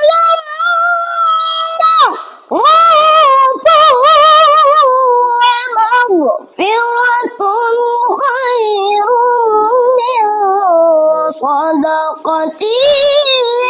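A child reciting the Qur'an in melodic tilawah style, holding long ornamented notes with a wavering vibrato in a high voice. Short pauses for breath come between the phrases.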